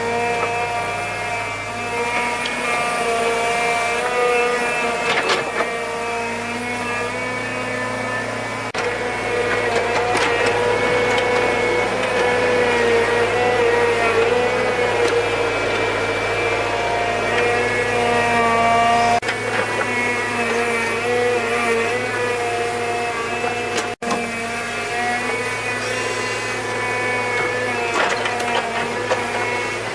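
A motor-driven power tool running steadily, its pitch wavering slightly as the speed changes under load, with brief breaks about two-thirds of the way through.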